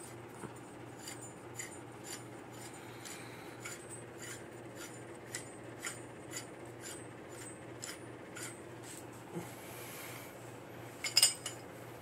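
Light metallic clicks and clinks from the machined aluminium parts of a prototype Merc clutch being handled and fitted together on a shaft, with a short cluster of louder clicks near the end. A faint steady hum sits underneath.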